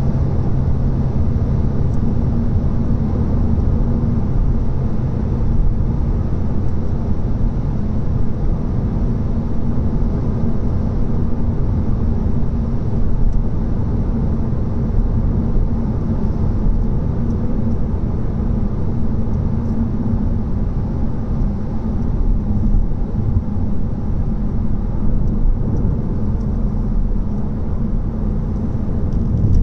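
Seat Leon on the move: a steady rumble of tyre, road and engine noise.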